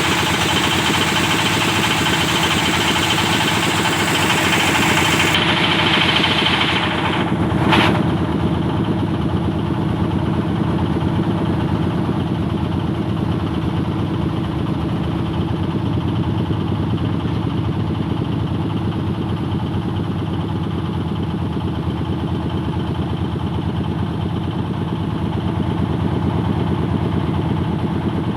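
The engine of a hydraulic well-drilling machine running steadily, with a single sharp knock about eight seconds in.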